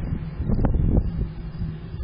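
Wind buffeting the microphone over a steady low rumble, with a louder gust from about half a second to one second in.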